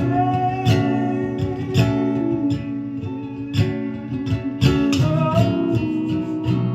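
Acoustic guitar played live in an instrumental passage: strummed chords with picked notes, each chord left ringing between strokes.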